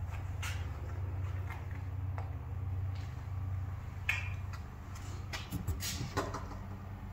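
Hinged MDF lid of a laser engraver enclosure being opened and handled: a series of light knocks and clicks, the sharpest about four seconds in, over a steady low hum.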